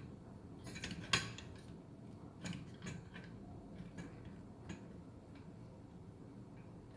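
Scattered light clicks and taps of motorcycle parts being handled and fitted by hand, with one sharper knock about a second in.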